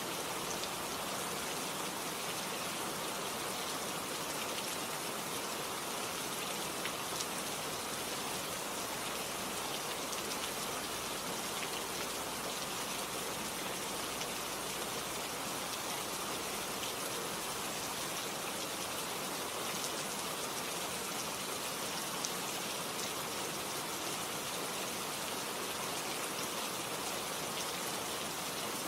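Recorded rain ambience: a steady, even hiss of falling rain with faint scattered drop ticks.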